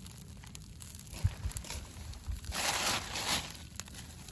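A whole mullet grilling on a stick over a wood-and-charcoal fire, with dripping fat sizzling and crackling on the coals. A louder hiss swells about two and a half seconds in. A few low knocks, like wind on the microphone, come near the start.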